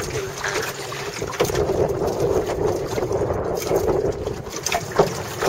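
Wind buffeting the camera's microphone in an open sailing dinghy: a steady, fairly loud rush, with a few short knocks.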